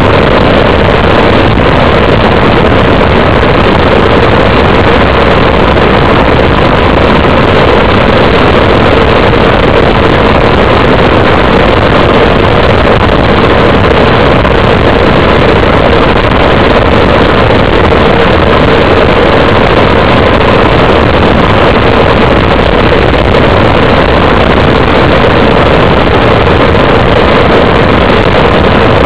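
Loud, steady wind rushing over the microphone of a bicycle-mounted camera on a fast downhill descent, unchanging throughout.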